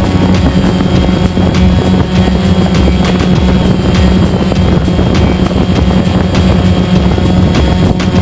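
A multirotor drone's electric motors and propellers buzzing steadily in flight, close to the microphone, a constant low hum with a higher whine above it.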